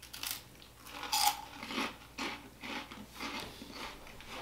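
Close-up crunching of salt and vinegar Chipsticks, crisp potato sticks bitten and chewed by two people. About two crunches a second, the loudest about a second in.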